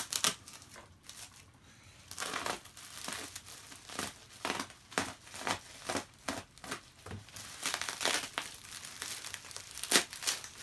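Bubble wrap crinkling and crackling as it is handled and pulled off to unwrap a vacuum cleaner, in irregular bursts of rustle, with a sharper crack near the end.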